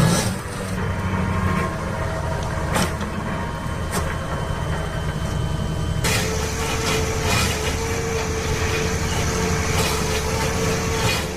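Heavy machinery running under load, with a couple of sharp knocks in the first half. About six seconds in the sound changes abruptly to a different machine running with a steady whine over it.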